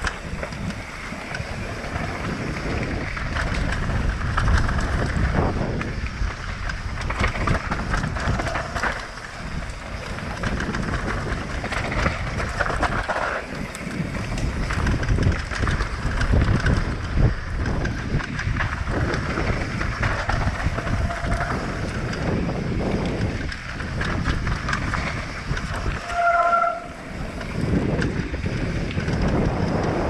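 Wind buffeting the microphone over the rumble and rattle of a mountain bike riding down a rough trail, with a short squeal near the end.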